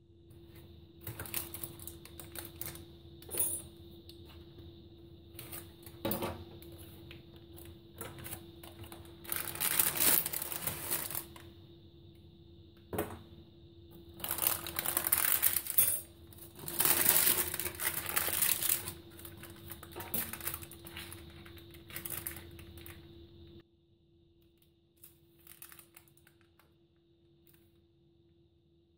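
Metal springform-pan clasp clicking as it is released, then parchment baking paper rustling and crinkling in several loud bursts as it is pulled and peeled back from a baked cheesecake.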